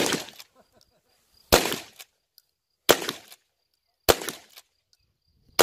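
Shotgun shots fired in quick succession, about five of them, roughly one every second and a half, each with a short ring-out.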